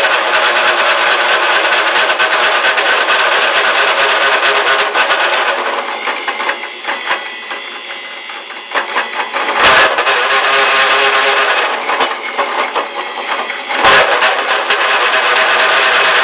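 Homemade metal lathe running under load while cutting metal: a loud, harsh, steady noise that eases off for a few seconds midway. Two sharp bangs come about ten and fourteen seconds in.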